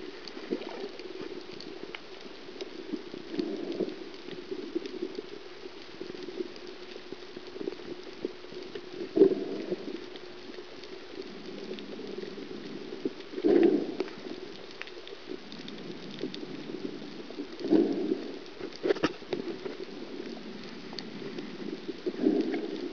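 Underwater sound on a coral reef: a steady crackle of fine clicks, with a low, muffled rush swelling about every four seconds.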